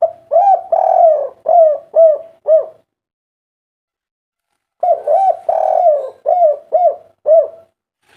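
Spotted dove cooing: two multi-note calls of about six arched coos each, the first right at the start and the second about five seconds in.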